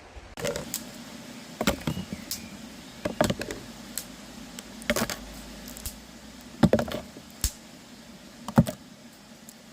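A series of sharp clicks and knocks, coming in small clusters roughly every second and a half.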